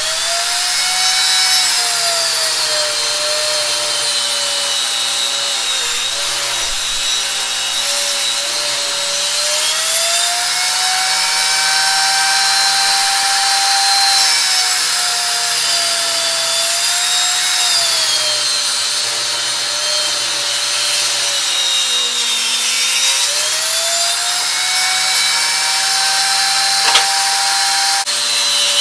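Table saw running and cutting wood: the motor's whine drops in pitch as the blade takes load in the cut and climbs back as it frees up, several times over. A short sharp knock near the end.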